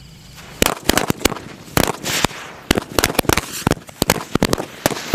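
Ground firecrackers going off in a quick, irregular run of about two dozen sharp bangs, starting about half a second in, with a crackling hiss between them.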